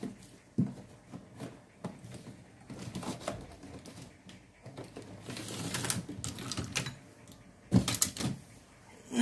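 Spinning fishing reels being handled: scattered small clicks, rattles and rustles, with two louder knocks near the end as a reel is set down or picked up.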